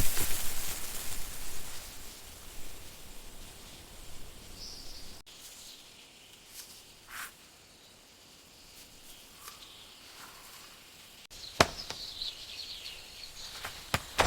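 Quiet outdoor ambience with a few sharp clicks and brief high chirps, a short one about five seconds in and a falling run of chirps near the end.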